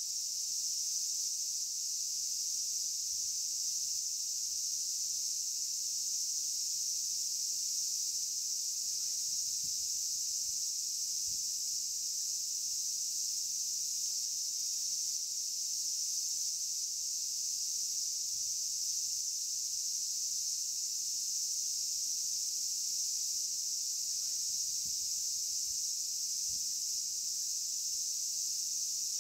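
A steady, high-pitched insect drone, with a faint low hum beneath it and a few faint ticks.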